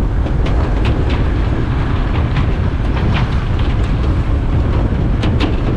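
Steady low rumble of a vehicle moving along a road, with wind buffeting the microphone and scattered light clicks and rattles.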